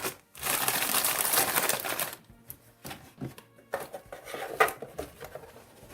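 Plastic packaging rustling for about two seconds, then scattered light clicks and taps of plastic model-kit parts being handled.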